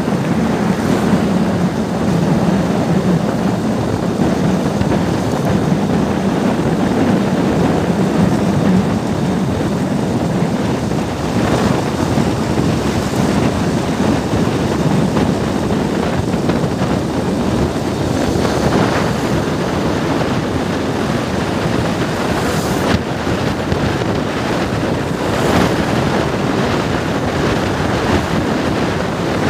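Steady wind rush on the microphone with the running noise of a vehicle travelling across a bridge deck. A low hum sits under it for the first several seconds, and a few brief swells come later.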